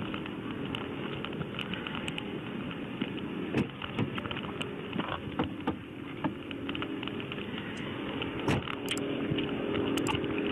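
Steady hum inside a police patrol car, from the running engine and ventilation, with scattered knocks and clicks as the seatbelt is handled around the handcuffed man. Near the end come a few sharp clicks from an added subscribe-button sound effect.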